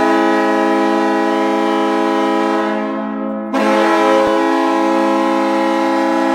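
New York Islanders' arena goal horn blowing a low, steady note. It fades about three seconds in, then sounds again half a second later and holds.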